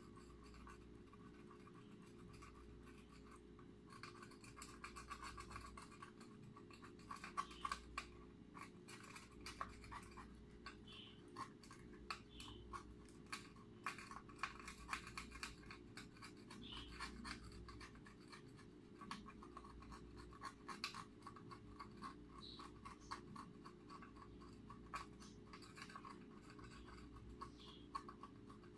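Faint scratching, rustling and small irregular clicks of hands handling LED modules and their wiring inside a sign letter, over a low steady hum.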